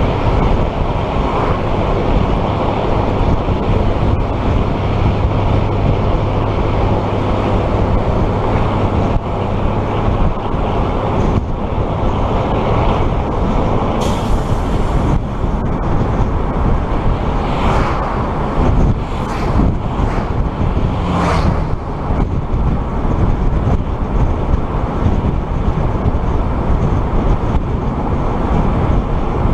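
Steady road, tyre and engine noise of a vehicle driving at about 60 km/h, with a low drone underneath. A few short whooshes come through around the middle.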